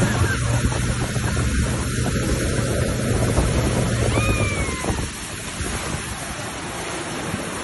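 Suzuki outboard motor running at speed with wind buffeting the microphone and water rushing past the hull. The engine hum drops away about five seconds in, leaving mostly wind and water.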